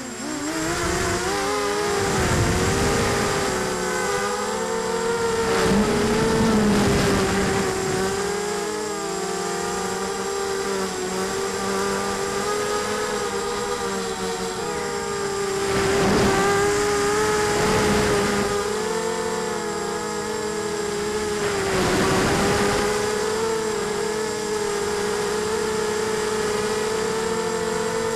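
Tarot 250 mini quadcopter's brushless motors and 5030 props whining, heard through its onboard camera, the pitch wavering with throttle. Several swells of wind rush on the microphone.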